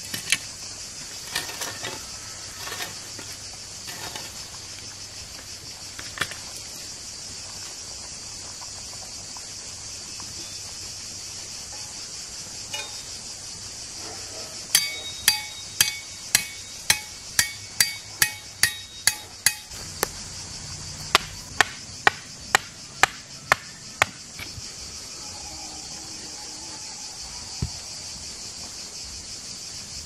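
Two runs of sharp, evenly spaced strikes, about two a second, each with a brief metallic ring: the first starts about halfway in and lasts about five seconds, the second follows shortly after and lasts about three seconds. There are a few single knocks earlier, and a steady high drone of insects runs underneath.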